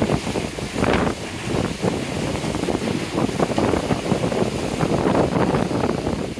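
Wind buffeting the microphone on a boat at sea, a constant irregular fluttering rush, with a stronger gust about a second in.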